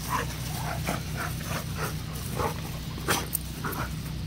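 An Alaskan malamute and a pit bull play-fighting, making a quick, uneven run of short growls and grunts.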